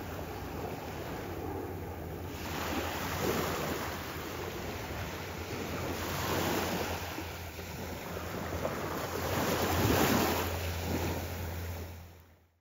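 Small surf washing onto a sandy beach, the wash swelling and easing about three times, with wind rumbling on the microphone; it fades out near the end.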